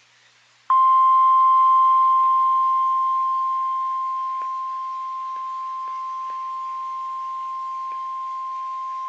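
NOAA Weather Radio's 1050 Hz warning alarm tone: one steady, piercing tone that starts about a second in, loud at first, eases down over a few seconds and then holds. It signals that a warning message is about to be broadcast.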